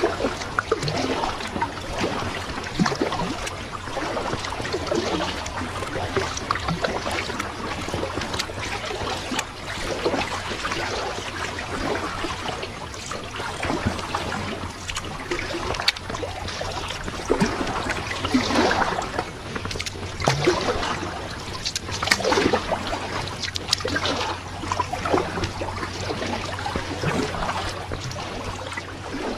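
Kayak paddle dipping into the water, with splashes, drips and water trickling around the boat, the splashes coming about every two seconds in the second half, over a low steady hum.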